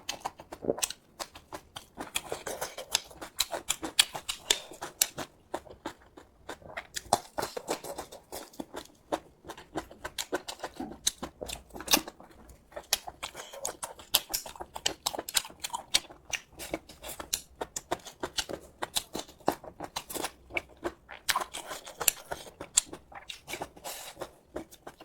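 A person eating: chewing and mouth smacking, heard as a dense run of small, irregular clicks.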